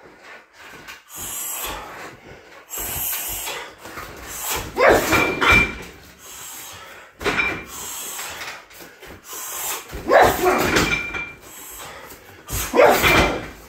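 Roundhouse kicks landing on a 60 kg Everlast heavy bag: a series of heavy thuds, the loudest about five, ten and thirteen seconds in.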